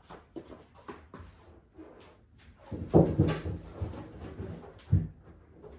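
Hands handling and pressing on small parts: scattered clicks, taps and rustles, with a louder cluster of knocks about three seconds in and a single sharp knock near five seconds.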